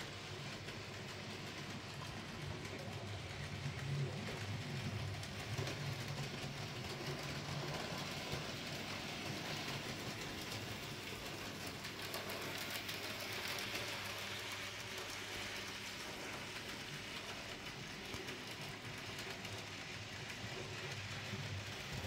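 N gauge model trains running round the track: a steady electric motor whirr with fine, rapid clicking of the small wheels over the rails and rail joints.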